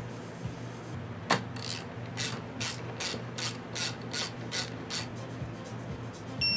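Ratchet wrench on a socket extension clicking as it is swung back and forth, tightening the brake-line banjo bolt on a motorcycle's handlebar brake master cylinder. The clicks come about three a second and stop about five seconds in.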